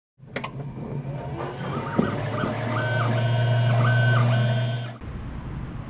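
3D printer stepper motors running through moves: pitched whines that ramp up, hold and ramp down several times over a steady hum, with a click near the start and a knock about two seconds in. The motor sound cuts off suddenly about five seconds in, leaving a steady background rumble.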